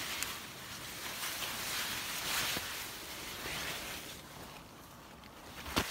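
Large sunflower leaves and stalks rustling and brushing against the phone as someone pushes through a dense stand of sunflowers; the rustling dies down after about four seconds, and a single sharp tap comes just before the end.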